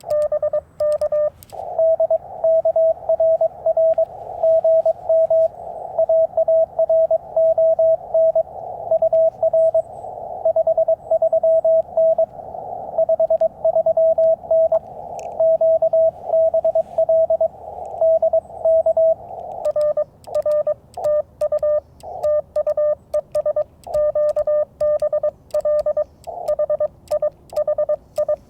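Morse code (CW) tones from a Yaesu FT-891 transceiver, keyed on and off in dots and dashes. Near the start and again from about two-thirds of the way through, the radio's own sidetone sounds with the clicks of a Bamatech twin-paddle key as the operator sends. In between, a slightly higher-pitched CW signal from another station comes in over faint band noise.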